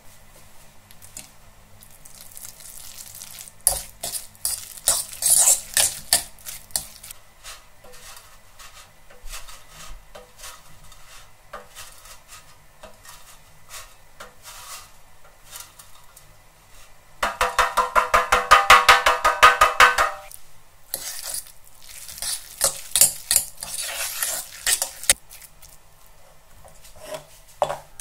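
A metal fork mixing minced meat with grated cheese in an enamel bowl, its tines clicking and scraping against the bowl's sides. The strokes come in bursts, with a fast, even run about two thirds of the way through that is the loudest part.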